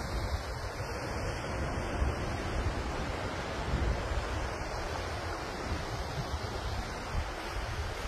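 Ocean surf washing onto the rocky shore, a steady hiss, with wind gusting unevenly on the microphone.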